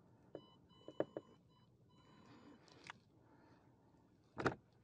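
A faint, high electronic whine that comes and goes in stretches of about a second, with a few light clicks and one louder knock about four and a half seconds in.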